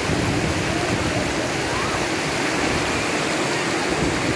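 Shallow river rapids rushing over boulders: a steady, even rush of white water.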